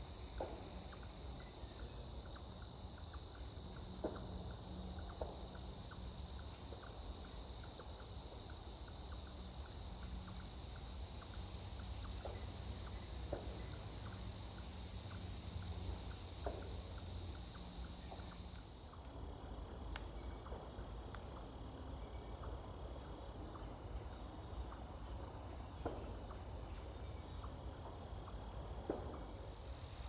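Woodland ambience: a steady high insect trill that stops about two-thirds of the way through, over a constant low rumble, with a few faint scattered clicks.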